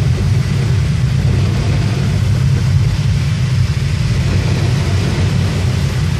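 Car driving on a wet, hail-slushed road, heard from inside the cabin: engine and tyre noise as a steady low drone with a hiss of wet road over it.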